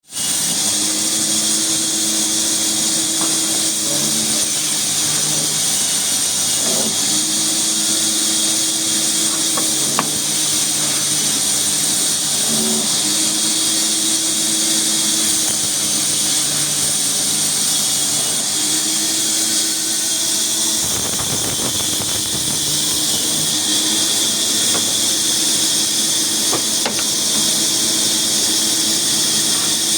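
Sawmill machinery running steadily, with a loud high hiss over a low humming drone that breaks off and comes back every few seconds.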